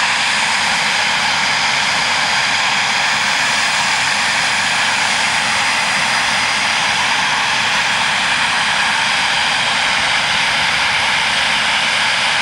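Eurofighter Typhoon jets' EJ200 turbofan engines running steadily: a loud, even jet noise with a faint whine that neither rises nor falls.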